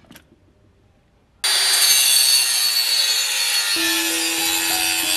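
Angle grinder cutting a stone tile, starting abruptly about a second and a half in and running steadily with a high whine from the disc. Background music with plucked notes comes in over it near the end.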